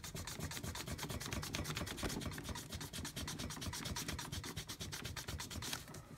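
Pink rubber eraser rubbed quickly back and forth over paper, a fast, even run of scrubbing strokes that stops shortly before the end: pencil guide lines being erased from under inked lettering.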